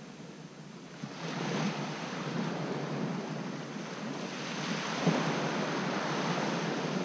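Small surf waves washing onto a sandy beach, with wind on the microphone; the wash swells louder about a second in.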